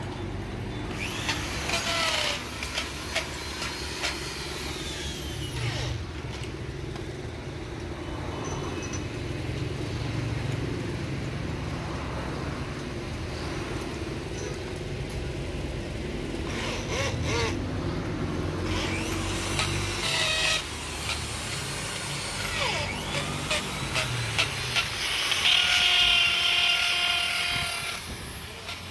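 Workshop machine hum running steadily, with three bouts of metal clinking and scraping on metal.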